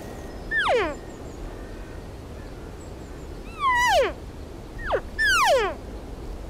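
Cow elk mews: four short, high-pitched calls that each slide steeply down in pitch, one about half a second in and three close together from about three and a half to six seconds in.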